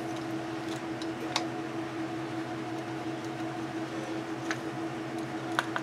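Steady electrical hum, with a few faint clicks and taps as the plastic housing, motor and switch of a Makita brushless cordless tool are handled during disassembly.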